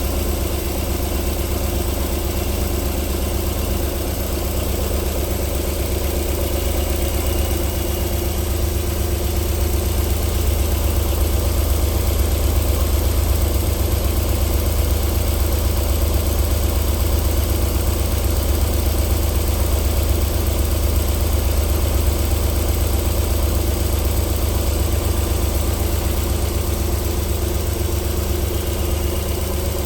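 Alfa Romeo 3.0 24-valve V6 engine idling steadily shortly after a cold start, running smoothly with no audible knock yet.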